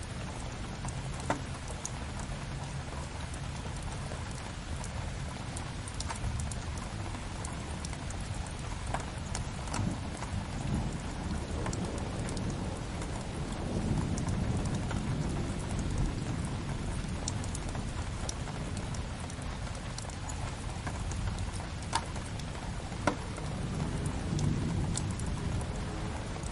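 Steady rain against a window mixed with a crackling wood fire, with a few sharp pops about a second in and twice near the end. A low rumble swells through the middle and again near the end.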